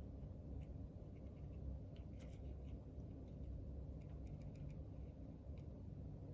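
Faint metallic clicks and scratches of a lock pick working the wafers of a Ford HU101 ten-wafer car lock, in small clusters about two seconds in and again near the end, over a low steady rumble.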